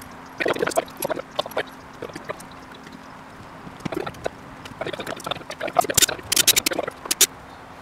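Clicks and taps of a steel machine screw and washer being handled and set against a wooden post, then a cordless drill driving the screw, with a run of loud sharp clicks in the last couple of seconds. The screw is spinning without threading into the rivet nut insert, which the builder puts down to a loose rivet nut.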